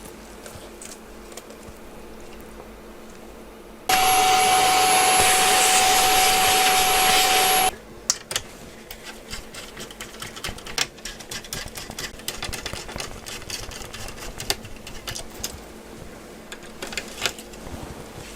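A loud burst of air being blown through a laptop cooling fan to clean it, with a steady whine over the rush of air, lasting about four seconds and cutting off suddenly. Before and after it come light clicks and scrapes of small parts being handled.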